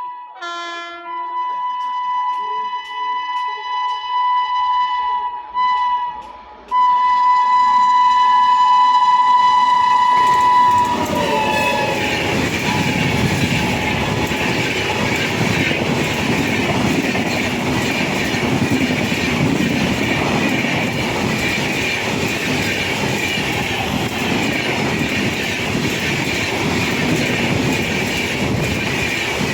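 WAP-7 electric locomotive's shrill horn, first in several short honks and then one long blast that drops in pitch as the locomotive passes about ten seconds in. After that the passenger train runs past at speed, its wheels clattering over the rail joints.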